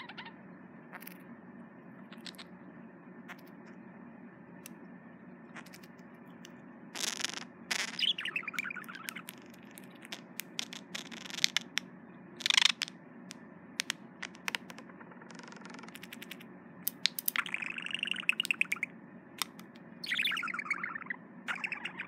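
Male budgerigar courting its reflection: bursts of high chirps and warbling chatter mixed with sharp clicks. The first few seconds hold only scattered clicks, and the calls begin about a third of the way in.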